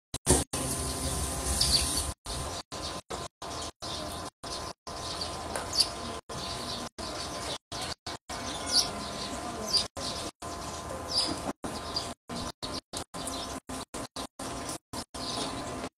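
Birds chirping, short high calls a few seconds apart over a steady faint background. The sound drops out for a moment again and again.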